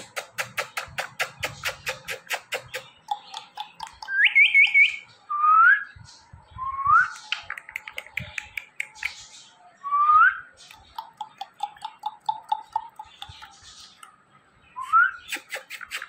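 A man and an Indian ringneck parakeet held at his lips trading kissing smacks and whistles: fast runs of smacking clicks, about eight a second, with about five short rising whistles among them.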